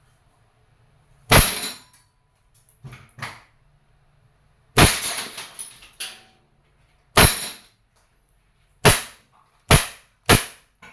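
Umarex Beretta PX4 Storm CO2 air pistol firing pellets: six sharp shots at uneven spacing, the last three in quick succession, with a couple of fainter knocks between the first two shots. It fires until its pellet magazine is empty.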